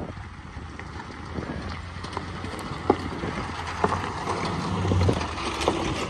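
Pickup trucks driving off across the railroad grade crossing: a low vehicle rumble that swells about five seconds in, with a few scattered sharp clicks.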